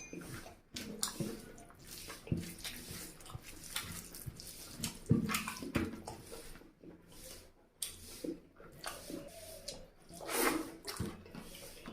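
Close-miked wet chewing and mouth smacking of a person eating chicken curry with rice, in irregular clicks and squelches, with a longer noisy rush about ten seconds in.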